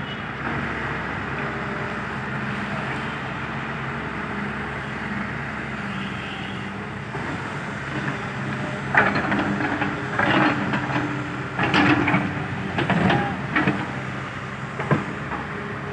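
Heavy-equipment diesel engine running steadily. From about nine seconds in comes a run of louder, irregular bursts of noise over the engine, several within about six seconds.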